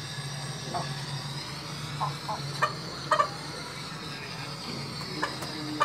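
Silkie chicken giving short, soft clucks, scattered through in ones and twos with the loudest near the middle, over a steady background hum.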